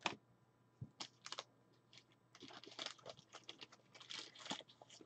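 Faint, scattered small clicks and light rustling, denser in the middle, as from handling a card or tapping keys close to the microphone.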